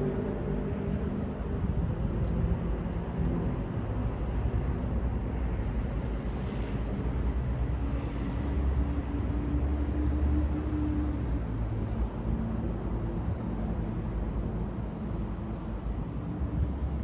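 City street traffic: a steady low rumble of cars and other vehicles on the road, with a faint engine hum from passing vehicles.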